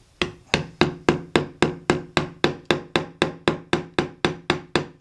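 Small hammer tapping the wooden handle of a V-chisel, driving it along a letter's long stroke into a hardwood breadboard. Steady taps, about four a second, each with a short ring.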